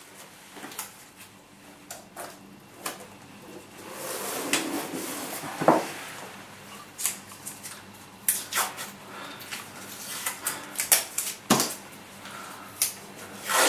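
Masking tape and a paper template being handled: rustling with scattered sharp clicks and taps as strips of tape are laid on to double up and strengthen the template.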